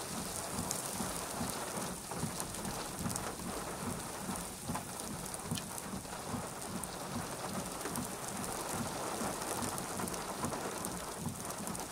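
Steady rain falling, with scattered drops tapping close by.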